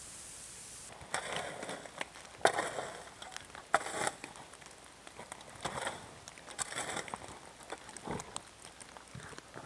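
A steady hiss for about the first second, then snow crunching in a run of irregular scrapes and crunches, one every second or so.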